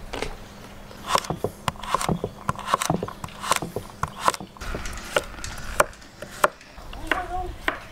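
Chef's knife dicing carrots on a wooden cutting board: quick, uneven knocks of the blade striking the board.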